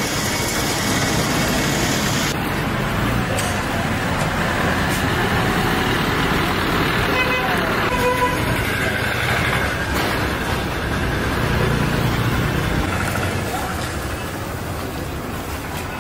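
Busy street traffic: vehicle engines running steadily under a mix of voices, with horns tooting briefly near the middle.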